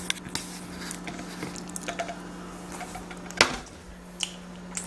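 Light clicks and knocks from handling bread and a bowl while eating, with one sharper knock about three and a half seconds in, over a steady low hum.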